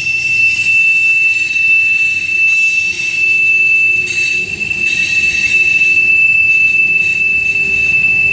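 Long freight train rolling past with a steady high-pitched wheel squeal held throughout over the rumble of the cars on the rails.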